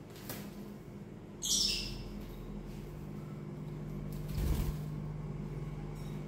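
Pet parrot giving one short, high squawk about a second and a half in, with softer rustling and a low thump later, over a steady low hum.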